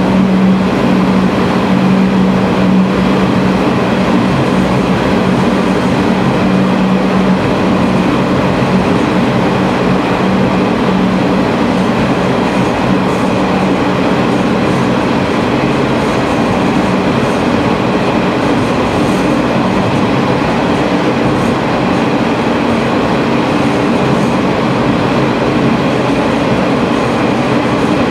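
Sanriku Railway diesel railcar running through a tunnel, heard from the front of the cab: a steady engine drone under wheel-on-rail noise, its low engine note giving way to a slightly higher one partway through.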